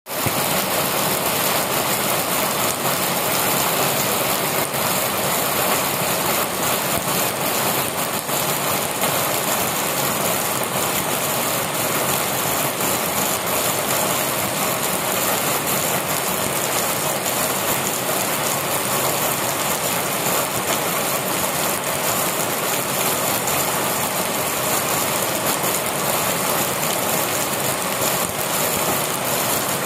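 Heavy rain pouring onto a concrete yard and leafy plants: a steady, dense hiss with many small drop splashes through it.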